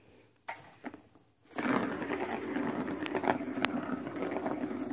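A plastic ball rolling fast around the circular track of a cat's ball-track toy: a steady rumble that starts about a second and a half in, with scattered sharp clicks.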